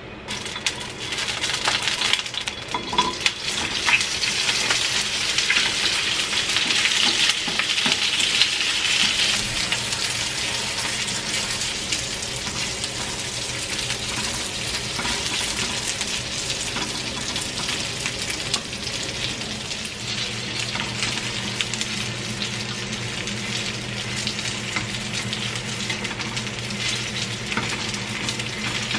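Frozen dumplings sizzling as they pan-fry in oil. Wooden chopsticks click against the pan as they are turned. The sizzle starts sharply about half a second in, is loudest over the first several seconds, then settles to a steadier sizzle.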